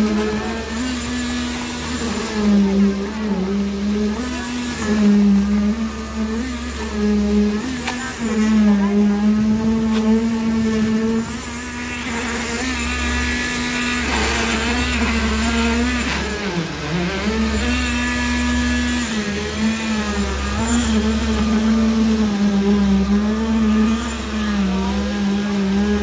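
Concrete poker vibrator running with a steady motor hum while it is worked through fresh concrete. Its pitch wavers up and down, with one sharp dip about two thirds of the way through.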